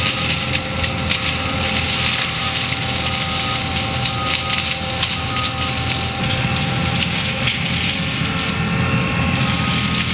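Forestry mulcher on an ASV compact track loader grinding through wood: dense splintering crackle over the steady engine rumble and a steady whine from the machine.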